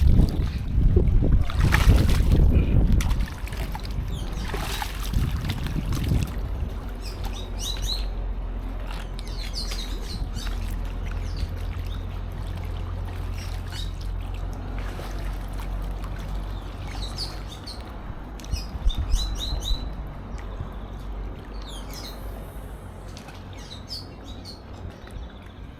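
Small birds chirping in short, scattered high calls, over a steady low rumble on the microphone that is loudest in the first few seconds.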